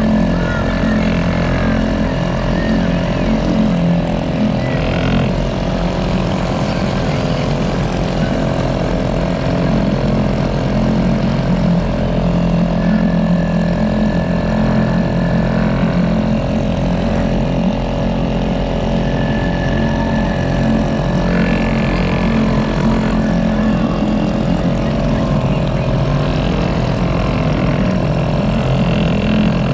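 Bumper boat's small engine running steadily, a close continuous hum that holds an even pitch.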